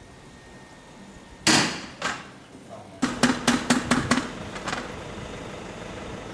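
Hammering-like knocks: two heavy single blows, then a quick run of about six sharp knocks with a low hum under them, and one more knock near the end.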